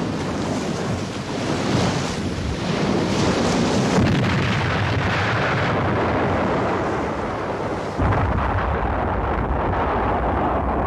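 Sea surf and wind on a TV drama's sound-effect track: a dense rushing noise, joined about eight seconds in by a heavier, deeper rumble.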